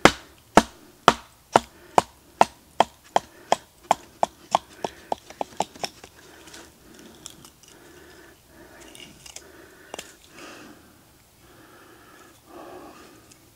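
Hatchet chopping a wooden spoon blank on a rock: a run of sharp, even wood knocks about two a second that speed up and fade, then about halfway through softer scraping strokes as the wood is shaved.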